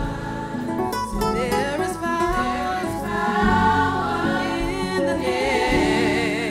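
Gospel church music: held keyboard chords under singing, with voices sliding and wavering between notes.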